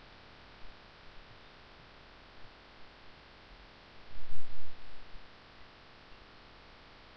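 Steady electrical hum and hiss from a recording microphone, with a few faint clicks. About four seconds in there is a loud, low, muffled thump lasting about a second.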